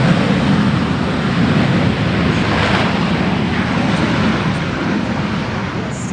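F/A-18 Super Hornet jet engines running with a steady, loud noise that holds at about the same level throughout.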